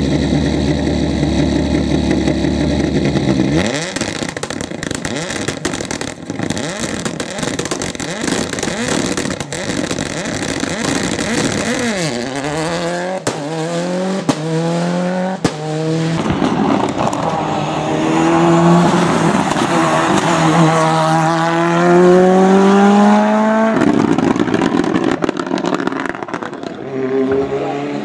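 Ford Escort WRC and Escort RS Cosworth rally cars with turbocharged four-cylinder engines accelerating hard past the roadside. The engine pitch climbs and drops again and again as they shift up through the gears. The sound cuts abruptly from one car to the next.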